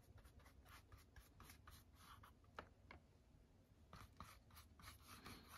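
Faint, repeated strokes of a paintbrush laying acrylic paint on cardboard, a soft scratchy brushing about two or three times a second.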